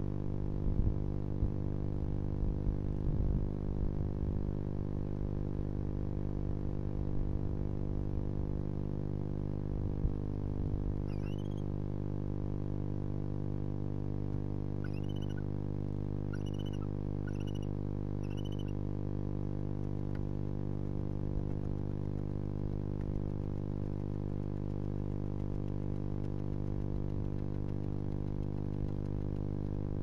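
Steady electrical hum made of many pitched tones, with a few short, high chirping calls near the middle: one on its own, then a quick run of five.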